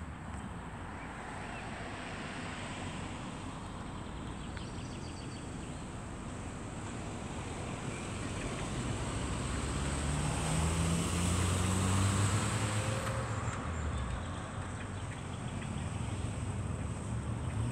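Low engine hum of a passing motor vehicle over a steady outdoor noise. It grows louder to a peak about twelve seconds in, then eases off again.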